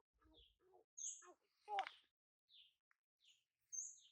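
Baby chicks peeping faintly: a string of short, high, downward-sliding peeps repeating about every two-thirds of a second, with a couple of sharper, higher peeps.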